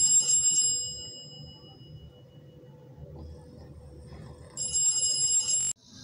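Bell-like alarm ringtone sounding twice: one ring that fades away over the first second or so, then another near the end that cuts off suddenly.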